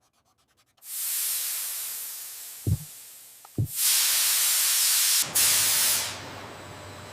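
Surges of loud hissing, spray-like noise with two dull thumps between them, settling into a quieter steady hiss with a low hum.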